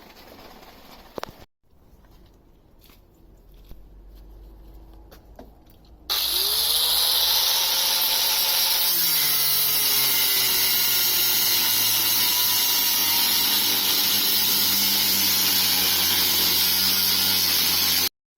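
An electric power tool starts about six seconds in, its motor tone rising as it spins up, then runs loud and steady until it cuts off abruptly near the end. Before it, only faint low sounds.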